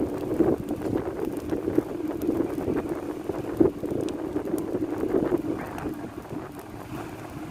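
San Juan bonfire burning with scattered sharp crackles, under a steady rush of wind buffeting the microphone.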